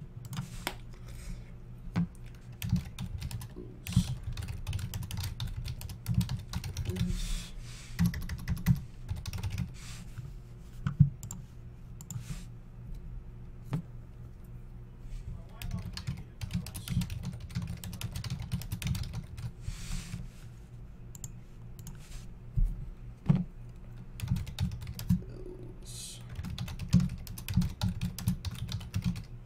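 Typing on a computer keyboard: irregular runs of key clicks, with pauses and some louder single taps.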